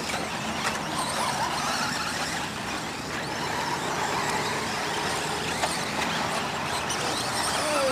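Several radio-controlled off-road cars racing on a dirt track: a steady mix of small motors, their pitch sliding up and down as they speed up and slow.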